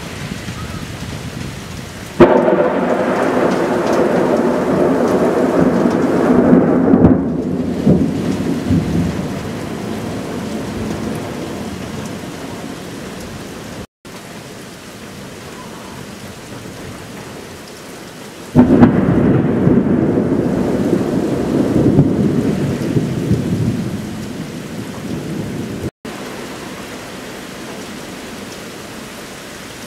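Two long peals of thunder, each starting suddenly and rumbling for several seconds before fading, the first about two seconds in and the second past the middle, over steady rain.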